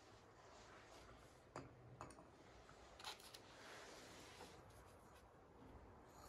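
Near silence: faint room hiss with a few small clicks and taps, about a second and a half, two and three seconds in.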